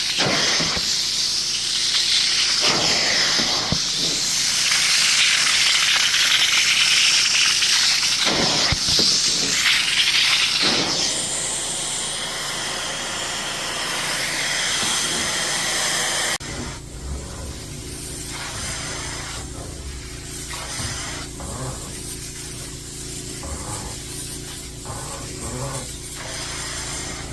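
Upholstery cleaning equipment giving a loud, steady spraying hiss; about 16 seconds in the sound cuts abruptly to a quieter, steady machine hum.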